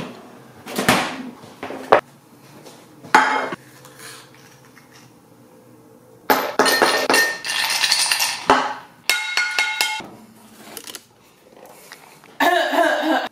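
Ice cubes and kitchenware being handled: scattered knocks and clinks, a clattering stretch about halfway through, then a quick run of ringing, glassy clinks.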